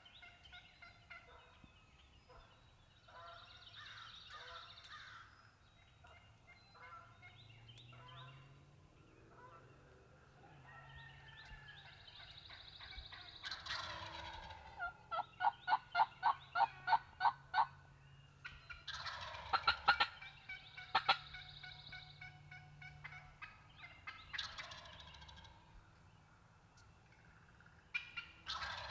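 Wild turkey gobblers gobbling again and again, the gobbles coming every few seconds and sometimes overlapping. In the middle comes a run of about ten loud, evenly spaced turkey yelps.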